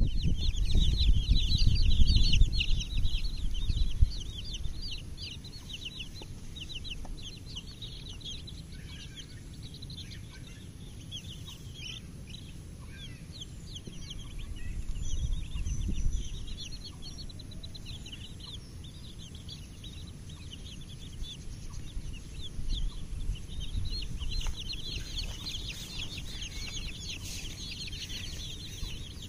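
A flock of young chicken chicks peeping: many rapid, high-pitched peeps overlapping, busiest near the start and again near the end, thinner in the middle. A low rumble rises under them at the start and again about halfway through.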